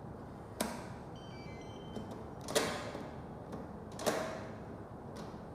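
L300 smart door lock being operated: a few short electronic beeps at different pitches, and three sharp mechanical clunks of the lever and latch, with lighter clicks between them.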